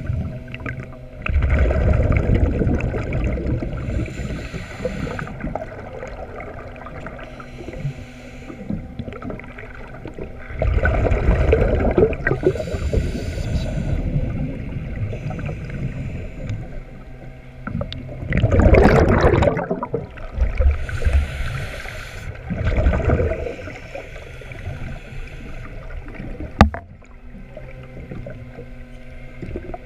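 A diver's scuba regulator heard underwater: exhaled bubbles rumble and gurgle in four loud bursts, with quieter breathing between them. A single sharp click comes near the end.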